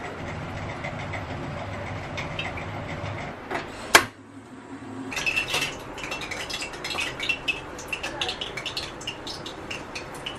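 Kitchen handling sounds around a kadai of oil on a gas stove: one sharp clack about four seconds in, then scattered clicks and clinks of utensils and cookware.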